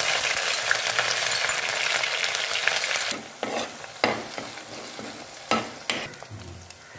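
Crushed ginger and garlic sizzling in hot coconut oil in a clay pot, a dense hiss that dies down after about three seconds. Then a few sharp clicks as a spoon stirs the frying mixture.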